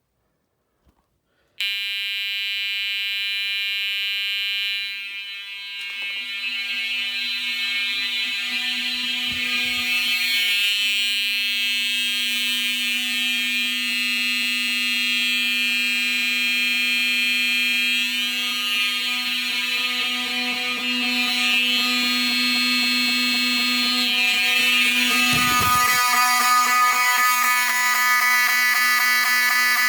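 A fire alarm system goes into alarm after its manual pull station is pulled. Alarm horns sound one steady, unbroken tone with many overtones, starting a second or two in. More signals join about five seconds in, and the tone changes again near the end.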